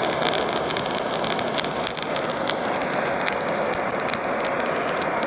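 Handheld torch flame playing on hardwood lump charcoal to light it: a steady rushing hiss with many small sharp crackles and pops.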